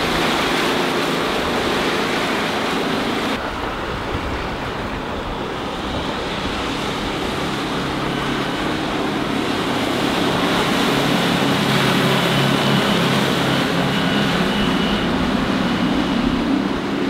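Four Winns 248 Vista sports cruiser with a Volvo Penta KAD32 diesel sterndrive running past at planing speed: a steady engine drone under the rush of hull and wake water, with wind noise. The sound changes abruptly about three seconds in, and the engine drone grows louder in the second half.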